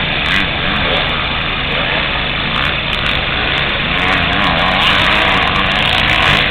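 A motor vehicle's engine running steadily, loud and continuous.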